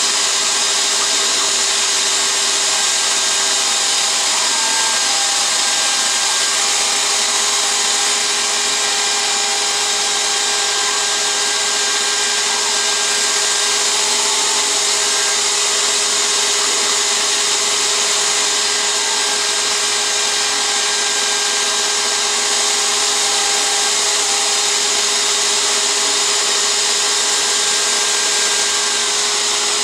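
CNC router spindle running with a V-bit milling shallow outlines into film-faced plywood, a steady whine over a constant cutting hiss, with the vacuum table's pump running underneath.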